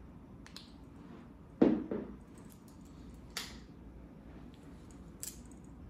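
Handling noises: a dull thump about a second and a half in, a smaller knock just after it, and a few short soft rustles or clicks.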